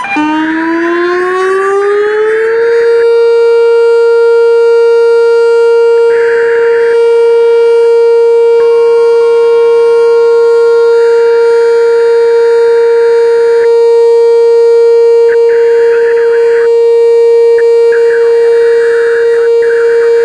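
Whelen WPS 2720 electronic outdoor warning siren sounding its steady alert tone. It winds up in pitch over the first few seconds, then holds one steady, loud tone without cutting off.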